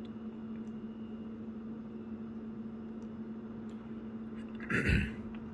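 A steady low hum, with a few faint clicks from the rubber keys of a Texas Instruments TI-83 Plus graphing calculator as they are pressed. A brief, louder noise comes near the end.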